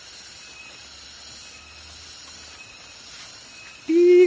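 A steady soft hiss; near the end a person's voice starts singing a loud, held note that steps slightly up and down in pitch.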